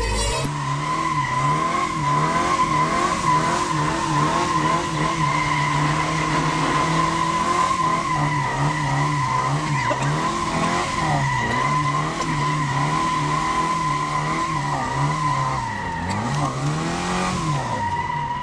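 Tofaş sedan drifting: tyres squealing steadily while the engine note rises and falls again and again as the throttle is worked, with a deeper dip and climb near the end.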